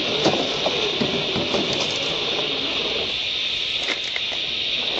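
Brushed electric motor and gearing of a 1:10 scale Axial SCX10 II RC crawler whining as it creeps down a rock slope, the pitch wavering up and down with the throttle. Tyres and loose stones click on the rock a few times, around a second in and again near four seconds, over a steady high hiss.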